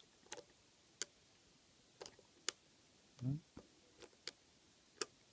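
Irregular sharp clicks from a lock pick and tension wrench working the pins of an American Lock 700 series padlock, about eight of them over five seconds, as the core is counter-rotated past spool pins. A short low hum comes about three seconds in.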